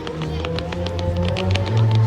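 Music accompanying a fireworks display, with a steady bass line and held tones. Many short, sharp crackles and pops of fireworks are scattered through it.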